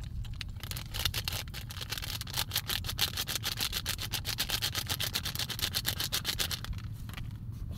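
A fast, even run of sharp clicks, many to the second, starting about half a second in and stopping near the end.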